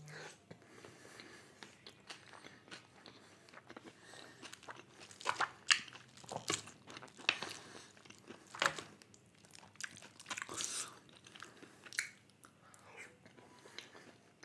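A person chewing mouthfuls of white sauce chicken pasta close to the microphone, with scattered short mouth clicks, a few of them louder.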